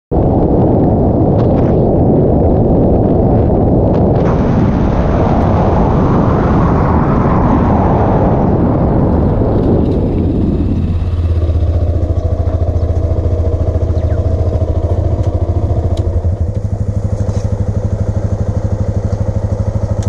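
Motorcycle riding with wind and road noise over the engine. About eleven seconds in the wind noise falls away as the bike slows, leaving the engine running steadily at low revs with an even pulsing beat.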